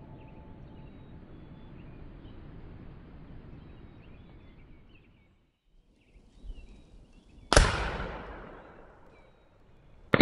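.54 caliber Greene twist-barrel black-powder rifle fired once about three-quarters of the way in, the shot echoing and fading over about a second and a half, with a second shot just at the end. Before the shots there is a steady outdoor background with faint bird chirps, which drops out briefly in the middle.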